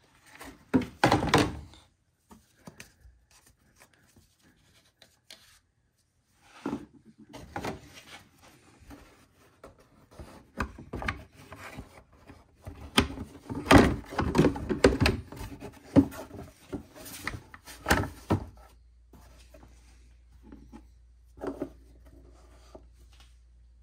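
Hard plastic engine cover of a Chevy Cobalt's Ecotec engine being handled and fitted back into place: scattered thunks, rubbing and knocks as it is set down and pressed onto its mounts, busiest and loudest in the middle. The oil filler cap is taken off and screwed back on.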